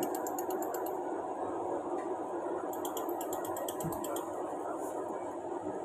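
Forza 160 pulsed laser soldering machine firing: two runs of rapid, evenly spaced ticks, about ten a second, one at the start and one lasting about a second and a half near the middle, each tick a laser pulse. A steady machine hum runs underneath.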